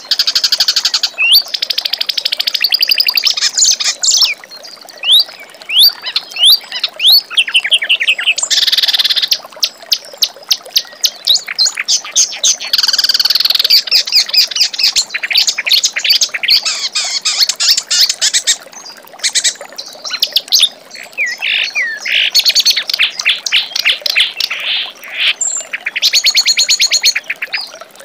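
Clamorous reed warbler (kerak basi) singing a long, fast, varied song. Harsh rattling chatters and rapid runs of notes alternate with quick rising whistled notes.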